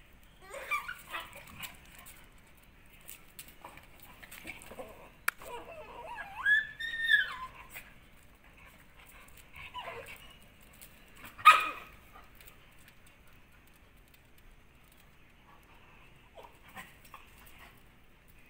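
Dogs in rough play, giving short yelps and whines. Near the middle there is one drawn-out whining cry of about a second. About two-thirds of the way through comes a single sharp yelp, the loudest sound.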